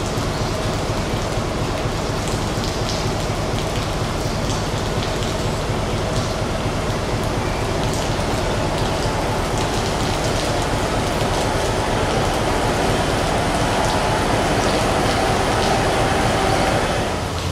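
Steady rain pattering on the platform and station canopy, while a Class 158 diesel multiple unit draws into the platform. The train's engine and wheel noise grow louder as it comes closer, then drop away suddenly near the end.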